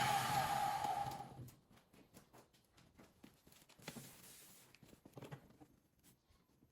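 An electric power tool spins down after being switched off, its hum fading over the first second and a half. Then come faint scattered clicks and taps of handling.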